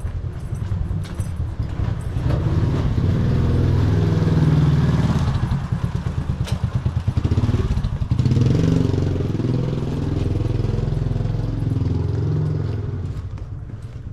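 Small motor scooter engine running close by in a narrow alley. It swells to a louder peak about four seconds in and again about eight seconds in, then fades near the end.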